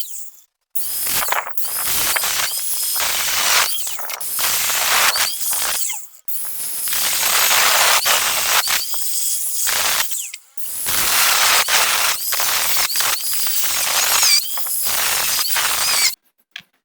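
Electric welding of nuts onto a steel rod: loud, harsh noise in a run of bursts a few seconds long, each cutting off abruptly, with short pauses between beads.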